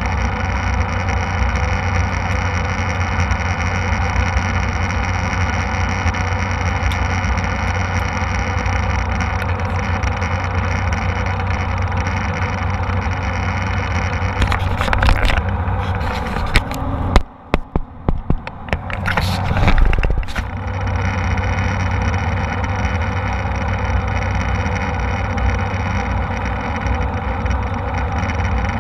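Steady drone of an airliner cabin in flight, engine and airflow noise with a strong low hum. About two-thirds of the way through, a run of sharp knocks and scrapes close to the microphone briefly muffles the drone before it returns.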